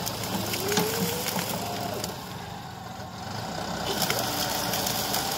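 John Deere 5405 tractor's three-cylinder diesel engine running under load as it drags a felled tree trunk on a chain, its pitch rising over the first second or so. Scattered sharp clicks sound over the engine.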